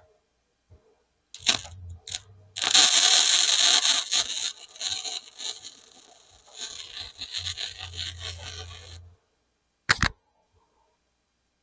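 Flux-core wire-feed welder arc crackling on thin sheet metal: a short strike about a second and a half in, then a weld of several seconds, loudest at first and fading unevenly, that stops about nine seconds in, with a low hum under parts of it. A single sharp click follows near the end.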